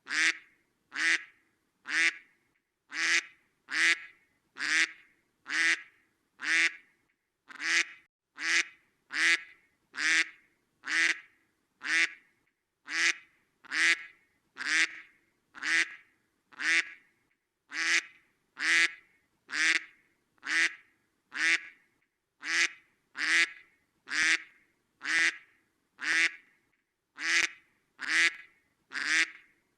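A duck quacking repeatedly in short, separate quacks, about one a second and sometimes two close together, with clean silence between them.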